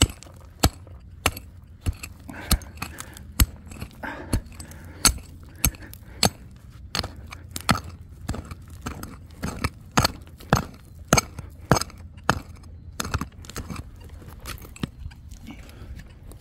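Hand digging tool striking hard, stony ground again and again while digging out a metal-detector target, about one to two blows a second with sharp clinks; the blows stop near the end.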